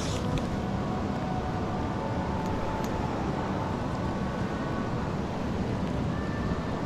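Steady rushing of river water, with a faint tick or two.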